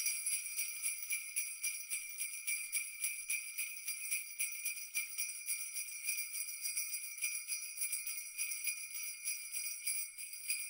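Sleigh bells jingling in a steady, quick shaking rhythm.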